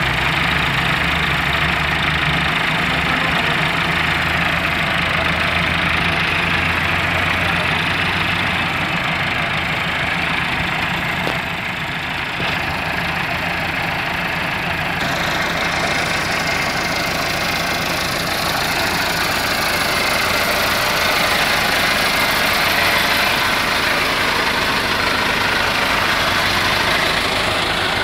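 Massey Ferguson 385 tractor's four-cylinder diesel engine running steadily while driving a wheat thresher through its PTO shaft, the thresher adding a continuous rushing drone. The sound grows brighter a little past halfway.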